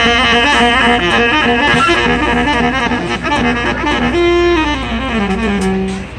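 Baritone saxophone played solo in a jazzy style: a quick run of notes, then about four seconds in a held note that slides down to a low note and stops near the end.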